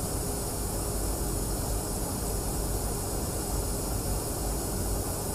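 Steady in-flight noise inside an aerial-refuelling tanker during a boom hookup: a low engine and airflow rumble with an even hiss and a faint steady hum.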